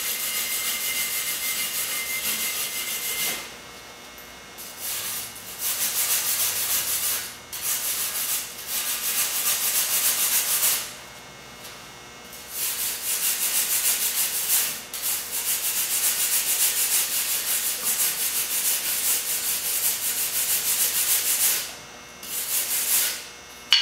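A brush scrubbed hard back and forth over fresh stick welds on steel brake rotors, cleaning off the slag and spatter after welding. It comes as long runs of rapid brushing strokes, broken by several short pauses.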